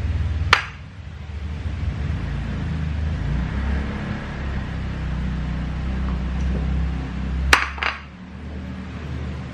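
Ceramic dishes clinking sharply twice, once about half a second in and again as a quick double clink near the end, over a steady low hum.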